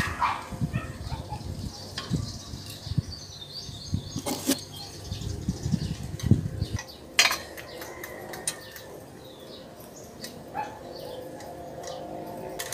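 Handling clicks and knocks from a pedal being fitted onto a bicycle crank arm, over a low irregular rumble that stops about seven seconds in.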